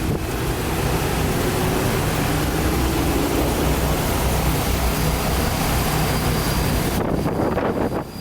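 A motor vehicle's engine running close by with a steady rushing noise, which drops away about seven seconds in.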